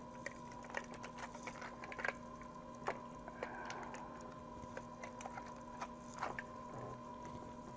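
Heavy-duty aluminium foil crinkling in short, faint crackles as it is pressed and pulled tight over a hookah bowl, over a steady faint hum.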